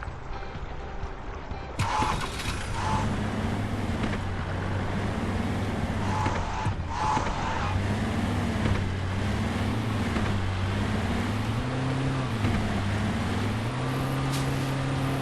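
Jeep engine pulling at low speed off-road, its revs rising and falling again and again as the throttle is worked, then holding steadier and a little higher near the end, over a constant rumbling noise.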